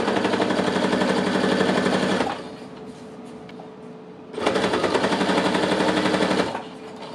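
Brother household sewing machine stitching at speed through a thick stack of high-density waterproof fabric. It makes two runs of about two seconds each, with a short pause between them.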